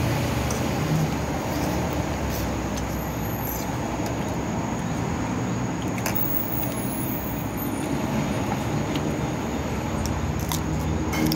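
Steady road-traffic noise of passing motor vehicles, with a low engine hum and a few light clicks.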